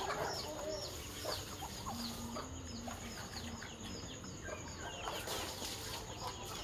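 Chickens clucking, with many short high calls repeating several times a second and a lower call about two seconds in.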